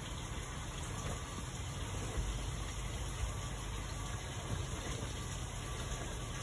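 Steady low hum with a hiss of moving water, the running pumps and aeration of a koi pond.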